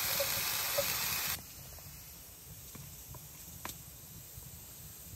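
Canned kidney beans sizzling as they are tipped into a hot cast-iron pot, a steady hiss that cuts off about a second and a half in. Then it goes quiet, with a few faint clicks and scrapes of a spoon mixing dough in a plastic tub.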